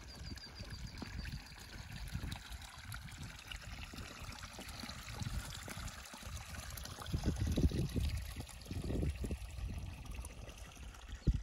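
Spring water pouring from two pipes onto stones and gravel, a steady trickling splash. Beneath it are irregular low rumbling bursts, loudest about seven to nine seconds in.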